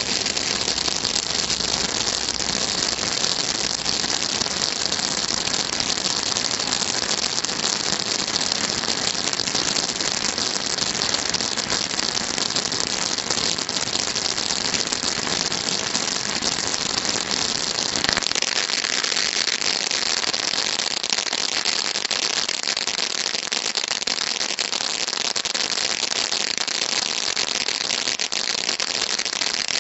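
Firework fountain burning with a steady spraying hiss and dense fine crackle. A single sharp click comes about two-thirds of the way through.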